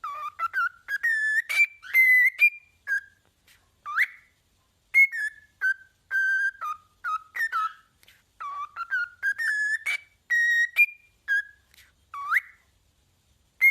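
A pet parrot whistling a tune: a string of short, clear notes that climb step by step, with quick upward swoops between phrases, and the rising phrase repeated later on.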